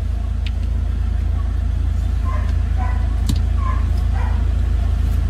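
Steady low rumble of a car running, heard inside the cabin, with a few light clicks from a seatbelt being pulled and handled.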